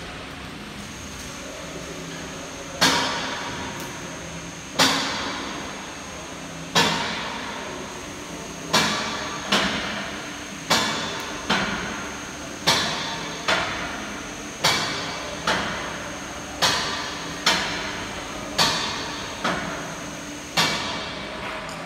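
Celette Rhone XL frame-straightening bench lifting, with loud ringing metallic clacks from the lift mechanism, at first one about every two seconds and then in pairs, over a steady high whine.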